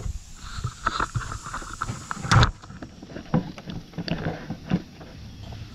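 Handling noises of hand tools: scattered clicks and knocks, with one louder knock about two and a half seconds in as something is set down.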